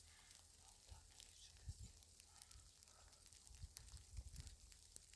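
Near silence: a faint low rumble with a few soft scattered clicks.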